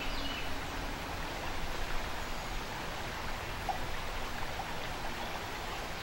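Fast-flowing river water rushing over riffles, a steady even rush.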